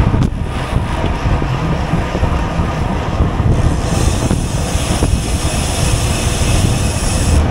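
Steady wind rushing over an action camera's microphone while riding a racing bicycle, with a brighter hiss joining about halfway through.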